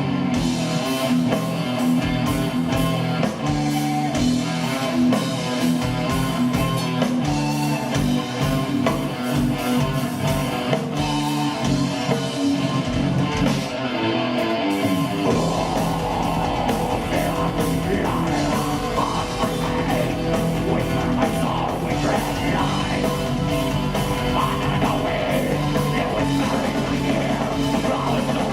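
Live doom/gothic metal band playing an instrumental passage: distorted guitars, bass, keyboards and drums. About halfway through the drumming changes and the low end fills in to a continuous rumble.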